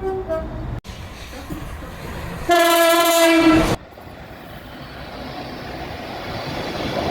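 Train horns: the last short notes of a two-tone horn cut off abruptly within the first second. About two and a half seconds in comes one loud horn blast lasting just over a second, ending in another abrupt cut. After it a rumbling train noise rises steadily.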